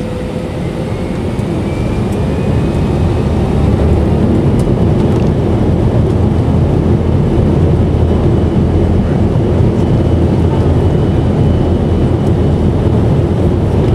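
Airbus airliner's wing-mounted turbofan engines, heard from inside the cabin, spooling up to takeoff power: the engine noise grows louder over the first few seconds, with a faint high whine rising, then holds at a steady, heavy rumble.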